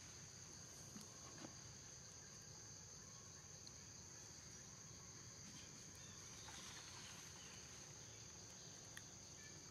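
Faint, steady, high-pitched drone of insects, with a few soft ticks.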